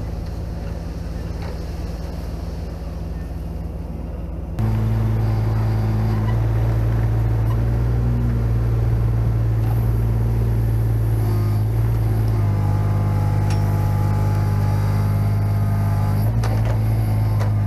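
A dump truck's engine running while its raised bed tips out a load of sod. Then, after an abrupt change, a Kubota mini excavator's diesel engine runs steadily under load as its root hook digs into soil. The engine note shifts a couple of times, and there are a few faint metallic clanks.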